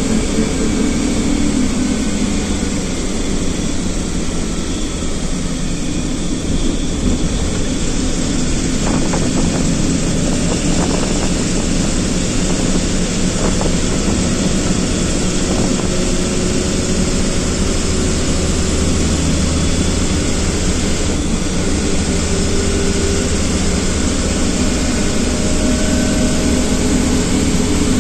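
Engine and road noise heard from inside the cab of a moving vehicle at road speed: a steady drone with a low engine hum.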